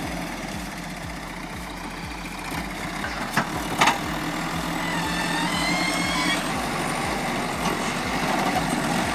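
Logging truck's engine running steadily with an even low pulse, growing a little louder over the second half. Two sharp knocks come about three and a half seconds in, and a faint rising whine about five seconds in.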